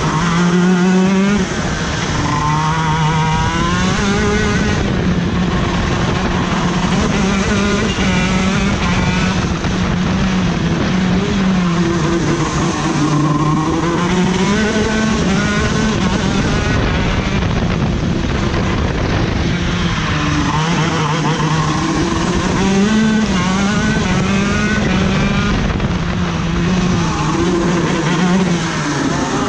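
A racing go-kart's engine heard onboard, lapping the track: its pitch climbs on the straights and drops off into the corners, over and over.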